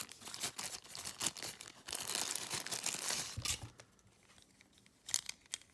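Packaging rustling and crinkling as a small power adapter is unwrapped and handled, a busy run of crackles for about three and a half seconds, then quiet with a few light clicks near the end.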